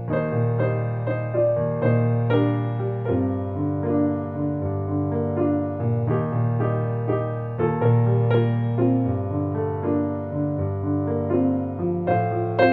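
Background piano music: a melody of struck notes over held bass notes, with no speech.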